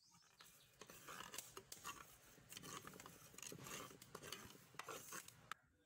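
A ladle stirring and scraping grated coconut as it dry-roasts in a clay pot: a quiet, steady scratchy rustle with many small clicks, stopping near the end.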